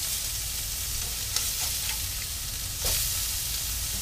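Blackened redfish fillets sizzling steadily in a hot nonstick frying pan. A slotted spatula scrapes and clacks against the pan a couple of times, loudest about three seconds in.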